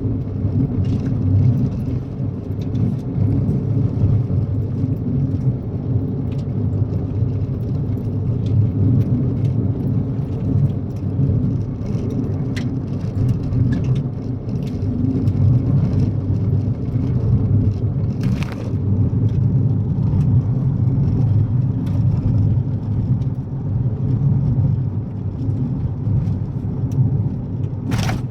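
Kia Picanto driving on a gravel road: a steady low rumble of tyres and engine, with a few sharp clicks.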